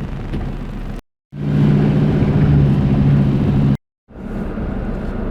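Vehicle engine running steadily while driving, with a low hum. It is heard in three short stretches separated by two brief dead-silent cuts, about a second in and just before four seconds in. The middle stretch is the loudest.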